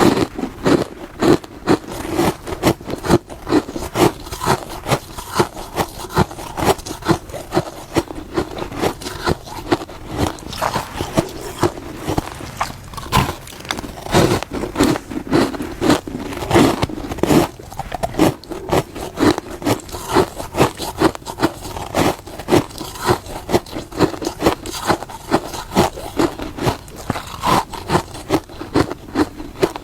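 Close-up crunching of hard freezer frost being bitten and chewed, a steady run of brittle crunches about two a second.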